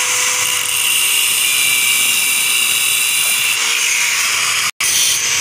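Handheld electric angle grinder cutting through a small piece of steel plate: a steady, loud high-pitched whine with grinding hiss. The sound drops out for a split second near the end.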